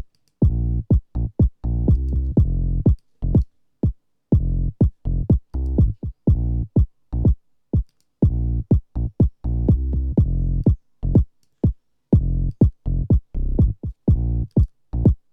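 House music loop of kick and bass playing through a transient shaper: short, clipped low hits with their tails cut off, leaving silent gaps between them. The shaper's sustain is turned down, cutting the low end and making the attack more percussive. The rhythmic pattern repeats about every four seconds.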